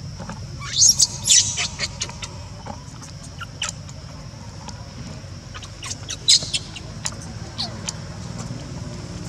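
Newborn macaque crying in short, shrill, high-pitched squeaks. They come in clusters, loudest about a second in and again around six seconds.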